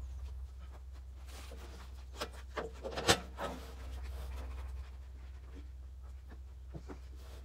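Scattered knocks and clatters from work around a portable bandsaw mill with its engine shut off, over a low steady rumble. There are a few light knocks and one sharper knock about three seconds in.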